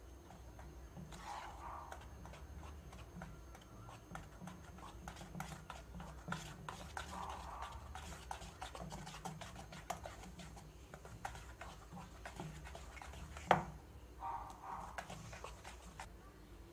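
Wire whisk stirring a powdery flour mix in a plastic bowl: faint, irregular scraping and ticking of the wires against the bowl, with one sharper click about thirteen seconds in.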